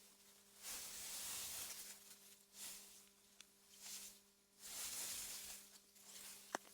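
AI-generated wind-through-meadow ambience: soft gusts of hiss that swell and fade every second or so. A faint steady hum lies underneath, and a sharp click comes near the end.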